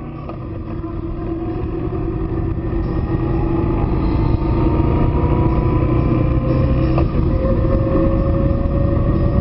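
Motorcycle engine running on the move, its pitch climbing slowly and steadily as it gathers speed, over a heavy rumble of wind and road noise on the microphone. The sound fades in over the first few seconds.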